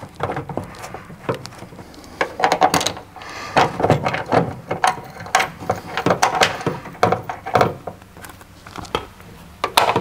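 Inertia-reel seat belt being tugged and worked by hand, giving irregular clicks and rattles from the reel mechanism and webbing. The reel is pressing against the van liner insulation, so the belt will not pull out freely.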